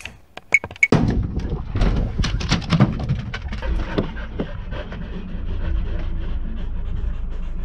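Dogs panting over a steady low rumble. A few sharp metallic clinks come in the first second, and then a run of short knocks between about two and four and a half seconds.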